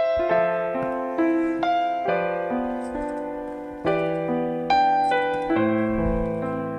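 Piano music: chords and melody notes struck about once or twice a second, each ringing and fading.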